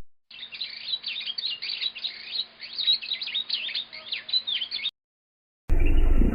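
Birds chirping: many quick, high, overlapping chirps that stop abruptly after about four and a half seconds. Near the end a louder, low rumbling noise begins.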